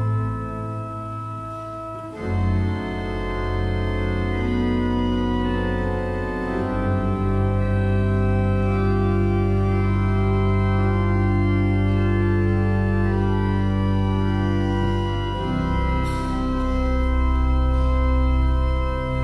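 Organ playing slow, sustained chords over long-held bass notes, the harmony changing every few seconds.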